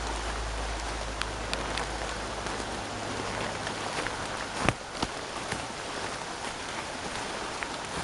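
Rain falling through a woodland canopy onto leaves and undergrowth: a steady hiss with scattered drips, and two sharper taps just under five seconds in.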